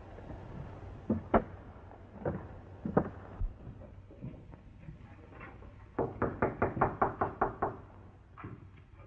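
A few scattered knocks in the first seconds, then a quick, even run of about ten knocks on a wooden door some six seconds in, followed by a couple more.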